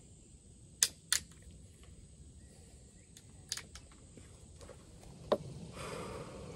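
A few sharp clicks from a muzzleloading rifle being handled: two quick clicks about a second in, single clicks later, and a soft rustle near the end.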